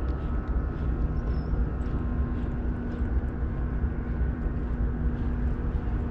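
Steady hum of a boat's electric trolling motor, one constant tone, over a low rumble of wind on the microphone.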